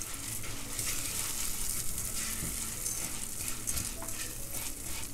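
Dry orzo frying in melted butter and a little olive oil in a pot with a light, steady sizzle, stirred with a silicone spatula that scrapes and shuffles the grains. The orzo is being toasted before broth goes in.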